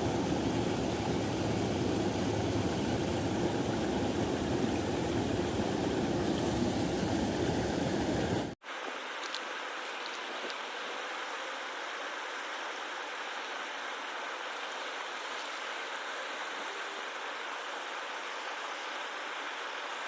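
Steady rush of flowing river water. About eight and a half seconds in it drops out for an instant and comes back thinner, without the low rumble.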